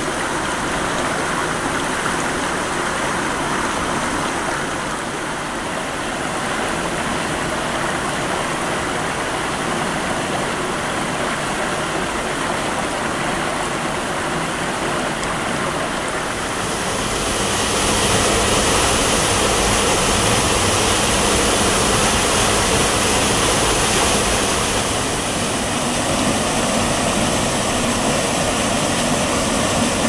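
Small waterfall with a drop of about one metre, pouring into a rocky pool: a steady rush of water that gets louder and hissier about halfway through.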